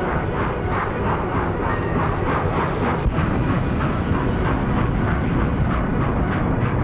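A train running at speed: a steady rumble with an even rhythmic beat about three times a second.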